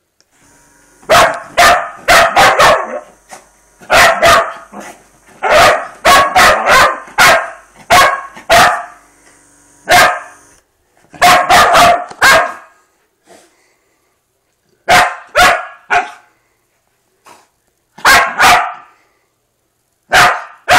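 Small dog barking loudly and repeatedly in quick bursts of two to five barks with short pauses. Underneath, a handheld electric massager's motor hums steadily for the first half and then stops.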